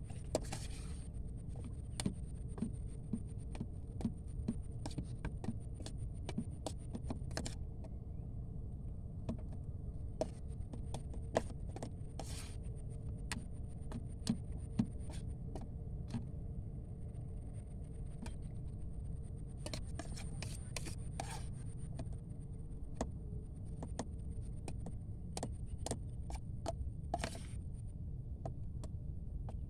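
Scattered clicks, taps and short scrapes of hands working with small objects, over a steady low rumble and a faint high whine.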